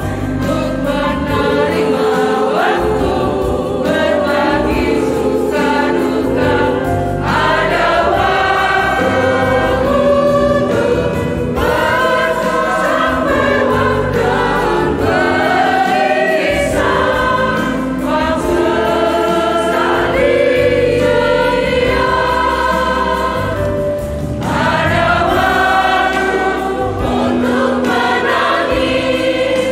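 Women's choir singing a Christian song in Indonesian in several voice parts, in phrases with brief breaths between them.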